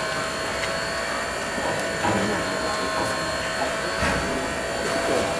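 Class 03 express steam locomotive 03 1010 standing in steam, giving a steady hiss with a thin high whine running through it.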